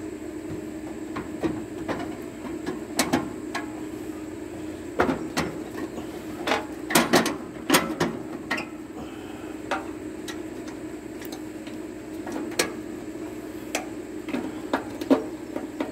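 Irregular knocks and clunks as a replacement battery is worked into a riding mower's battery compartment. The knocks come thickest about five to eight seconds in, over a steady low hum.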